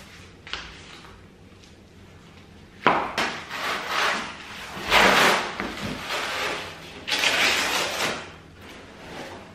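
Corrugated cardboard being torn by hand, the side of a large flat-pack box ripped open in three long rips, the first about three seconds in.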